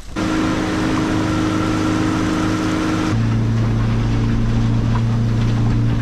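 A boat's outboard motor running steadily, its pitch changing about three seconds in.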